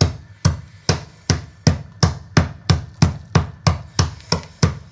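A heavy steel rebar bar pounding dry dog kibble on a plastic bag, with even, regular strikes about three a second, crushing the biscuits to powder.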